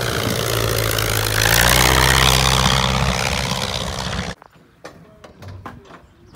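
Fairchild 22 light monoplane's piston engine and propeller running as it flies low past and climbs away, loudest about halfway through. The sound cuts off abruptly after about four seconds, leaving faint scattered clicks.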